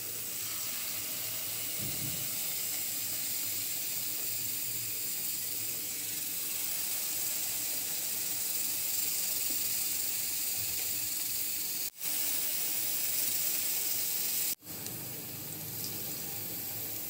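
Spoonfuls of banana malpua batter deep-frying in hot oil in a pan: a steady sizzling hiss, which drops out for an instant twice near the end.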